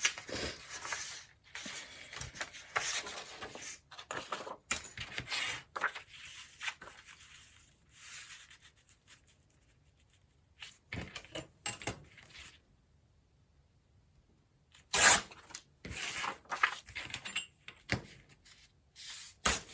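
Scraps and sheets of paper being handled and sorted: irregular rustling and crinkling, a quieter stretch in the middle, then a few sharper, louder handling noises near the end.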